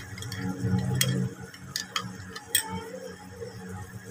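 Metal spoon clinking against a glass bowl while yogurt and korma masala are stirred together: a few sharp, irregular clicks over a low hum that is strongest in the first second.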